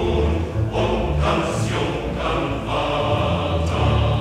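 Choral music: a choir singing in loud, repeated phrases.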